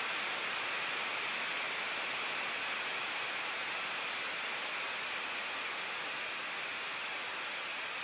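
Jet engine running steadily on a test stand: an even rushing noise with no change in pitch or level.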